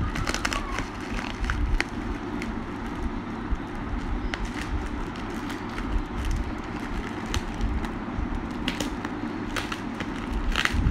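Bubble wrap and a plastic mailer bag crinkling as hands handle and unwrap a parcel, with irregular sharp crackles that grow denser near the end, over a steady low background rumble.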